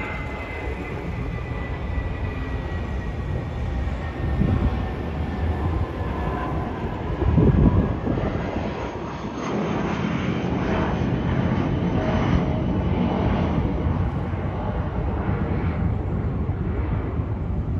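Airbus A320-232 airliner's IAE V2500 turbofan engines heard from the ground as the jet climbs out overhead after takeoff: a steady rumble with a thin whine that slowly falls in pitch as the aircraft passes.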